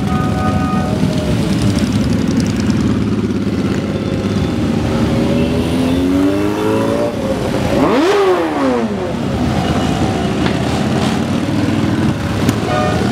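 A convoy of motorcycles riding past at low speed, many engines running at once and revving. About eight seconds in, one bike revs up sharply and its pitch rises and falls as it passes.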